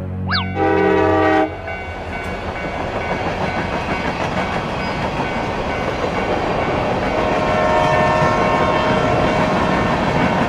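Train sound effects: a short horn blast about half a second in, then the steady rumble of a running train that slowly grows louder.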